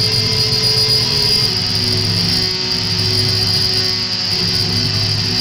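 Live electronic noise music: a loud, steady drone made of a high hiss and a low hum, with faint held tones in between.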